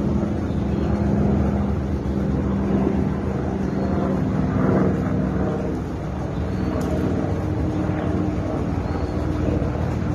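A steady low mechanical hum with a noisy rumble beneath it.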